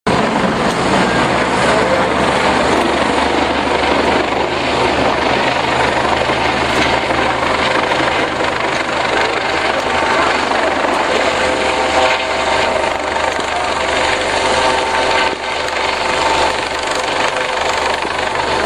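US Coast Guard helicopter flying past overhead, its rotor and turbine engine running loud and steady, with a steady whine.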